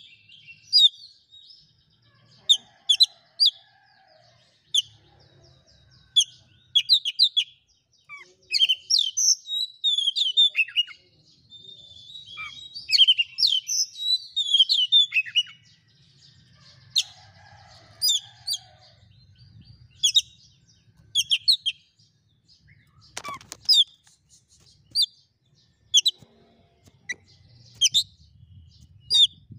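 Oriental magpie-robin (kacer) singing in full voice: phrases of loud, sharp whistles and rapid chirping notes that swoop up and down, with short pauses between phrases. A single sharp knock about two-thirds of the way through.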